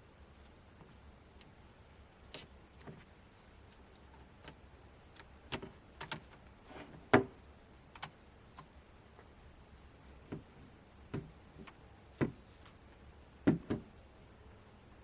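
About a dozen small, sharp clicks and taps at irregular intervals, the loudest about seven seconds in, from handling the tablet's parts and small repair tools during disassembly.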